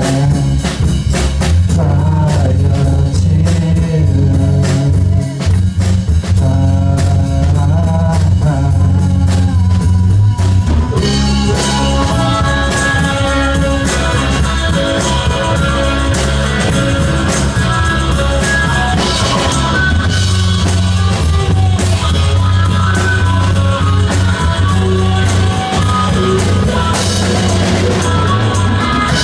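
Live rock band playing: singing over a drum kit, electric guitars and keyboard. About eleven seconds in, the singing gives way to a fuller, brighter instrumental passage with held lead notes and more cymbal wash.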